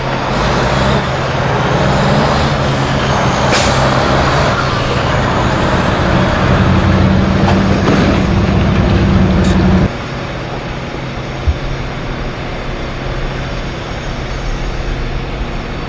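A vehicle engine idling close by, a loud steady low hum that cuts off abruptly about ten seconds in, leaving quieter street background. A single sharp click comes about three and a half seconds in.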